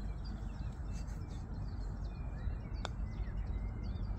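Single sharp click of a putter striking a golf ball about three seconds in, over a steady low rumble, with small birds chirping throughout.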